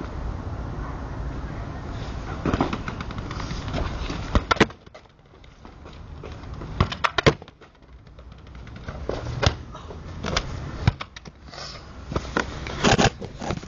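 A football being kicked and bouncing on paving: sharp knocks a second or more apart, over a low rumble that fades about four seconds in. Near the end come a cluster of louder knocks as the camera is handled.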